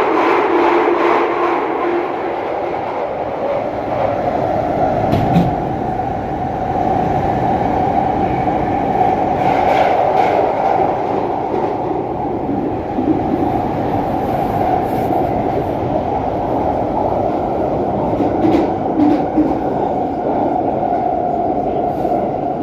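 London Underground Jubilee line train (1996 stock) running, extremely loud: a continuous roar with a steady droning tone through it and a few sharp clicks from the track.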